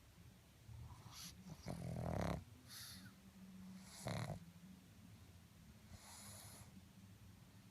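Pug snoring, with separate noisy breaths: a long, loud one about two seconds in, a shorter one near four seconds and a fainter, airy, hissing one about six seconds in.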